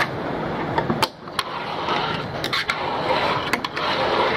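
Fingerboard wheels rolling over a wooden Blackriver fingerboard ramp, with several sharp clicks as the board is popped and lands on the wood.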